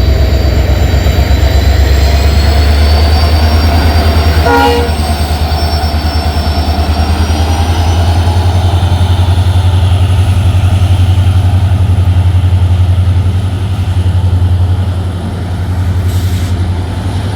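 Indian Railways train running close by: a loud, steady low rumble with a thin high whine that slowly rises in pitch. A brief tone sounds about four and a half seconds in.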